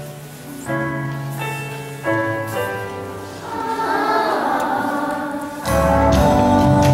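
Children's choir singing a song over keyboard chords that change about once a second. Near the end a louder, fuller accompaniment with bass comes in.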